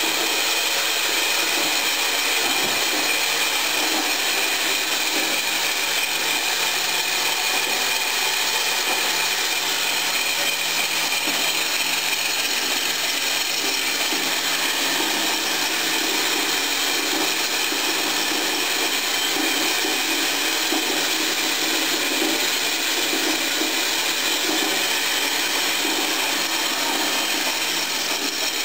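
Homemade gravity-feed metal band saw running steadily, its blade cutting through aluminum stock.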